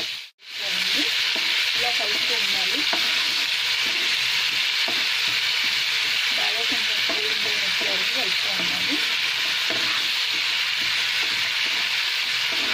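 Ginger-garlic paste frying in hot oil in a pan: a steady sizzle, with a spoon scraping as it is stirred through. The sound cuts out for a moment just after the start.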